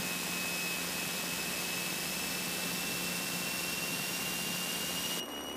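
Cabin noise of a twin-engine Piper Seminole in an emergency descent: a steady engine and propeller drone with a thin whine that climbs slowly in pitch. The hiss drops slightly near the end.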